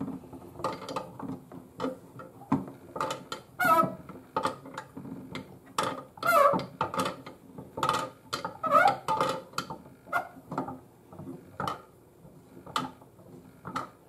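Toy washing machine turning its drum with water inside, giving repeated clicks and light knocks and several short squeaks. The drum is struggling to tumble properly.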